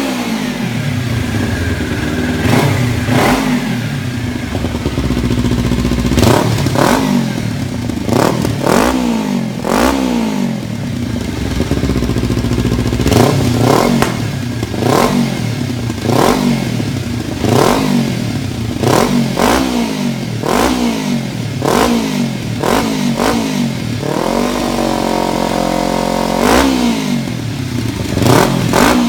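2015 Kawasaki Ninja 300's parallel-twin engine revved in neutral through an eBay Yoshimura-style carbon slip-on exhaust: repeated quick throttle blips about once a second, each rising in pitch and falling back toward idle, with one rev held steady for about two seconds near the end.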